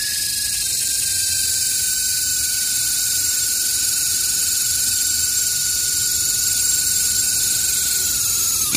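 Homemade cordless mini drill's N-20 gear motor running as its bit drills through a thin PVC sheet: a steady high whine with a hiss over it. The pitch sags slowly under the load and drops near the end.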